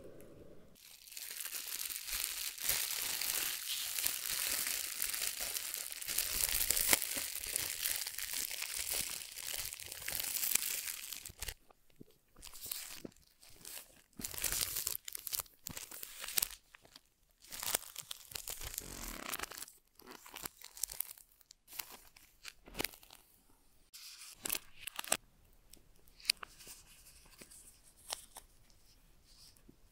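Clear plastic shrink-wrap being torn off a headphone box: about ten seconds of continuous tearing and crinkling, then short bursts of crinkling and rustling as the film is pulled away.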